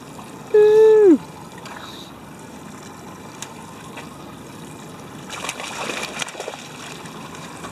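A hooked rockfish thrashing and splashing at the water's surface about five to six and a half seconds in, over a steady wash of water. Shortly after the start, a loud, held vocal cry that drops in pitch as it ends.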